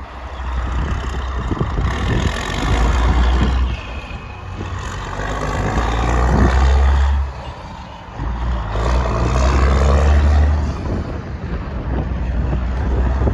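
Western Star heavy truck's diesel engine working under load, its rumble swelling and easing three times as it pulls and changes gear.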